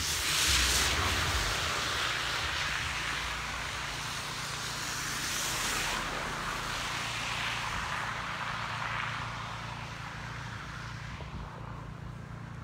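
Traffic passing on a slushy street: a rushing tyre hiss that swells and fades several times, over a steady low rumble.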